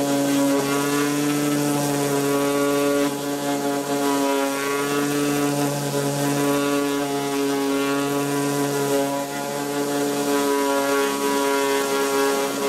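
Bosch hand-held orbital sander running steadily against a fibreglass boat hull, grinding off the old epoxy coating and filler: an even electric motor hum over a gritty sanding hiss.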